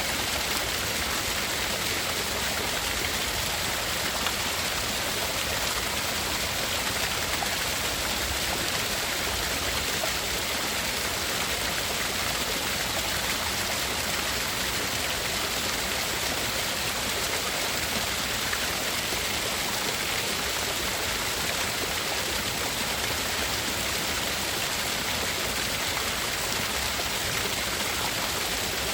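Steady tinnitus-masking noise, an even rushing hiss like running water, with no changes. Two narrow bands high in the pitch range are cut out of it.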